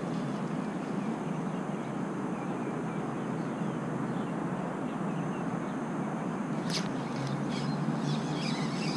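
Steady outdoor background noise, with one sharp click about seven seconds in and high chirping in the last couple of seconds.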